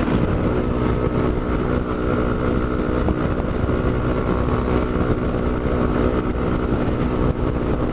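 Yamaha Ténéré 250's single-cylinder engine running at a steady pitch while the motorcycle rides along the highway, heard through a helmet-mounted camera with wind rushing over the microphone.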